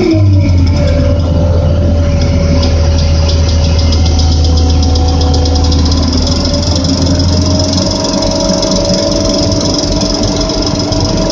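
Crane engine running steadily with a deep hum. A whine above it drops in pitch at the start, then climbs slowly about six seconds in, as the engine speed changes.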